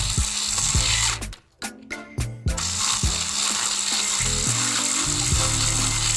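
A small motor-driven mechanism whirring and rattling steadily, over background music.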